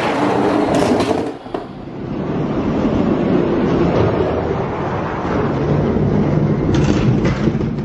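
Die-cast Hot Wheels monster trucks rolling three-wide down orange plastic track, a steady rumble of plastic wheels running over the track, with a few sharp clicks and knocks about a second in and again near the end.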